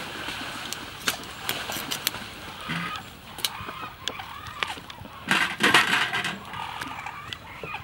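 A metal utensil clicking and tapping against a stainless steel mixing bowl as a mound of rice vermicelli is laid onto a salad. Birds call in the background, with a louder, denser burst of sound a little past the middle.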